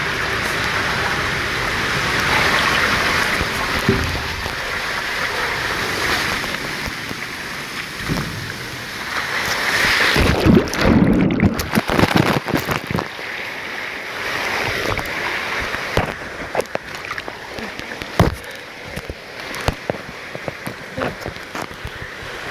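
Steady rush of running and splashing water, with a burst of knocks and thumps about halfway through.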